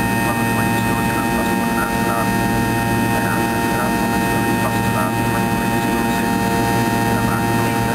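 Cabin sound of a Fokker 70's rear-mounted Rolls-Royce Tay turbofans at climb power just after takeoff: a steady, loud drone with several steady whining tones over it.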